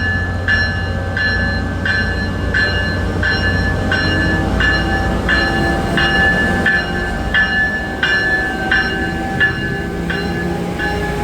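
Tri-Rail commuter train pulling away: a bell strikes steadily, about three strokes every two seconds, over the low rumble of the diesel locomotive. The locomotive's pitch rises slowly as the train accelerates.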